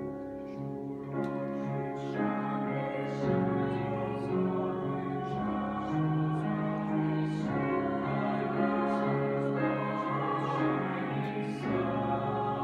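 Mixed choir of women's and men's voices singing held chords, accompanied on grand piano; the voices come in together at the very start after a silence.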